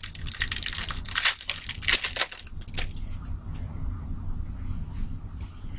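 Foil trading-card pack wrapper crinkling and being torn open by hand for about the first three seconds, followed by quieter rustling as the cards are handled.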